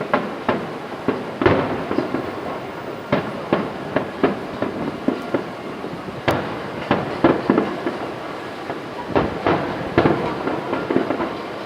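Aerial fireworks bursting in a rapid, irregular series of sharp bangs, some louder and some fainter, over an unbroken rumble.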